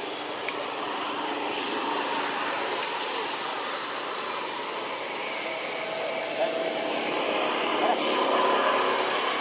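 Steady outdoor background noise, an even rushing hiss, with faint voices mixed in.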